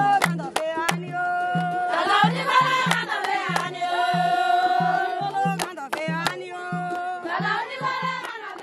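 A song with singing over a steady bass beat and sharp percussion hits, with a long held note in the middle; it begins to fade out near the end.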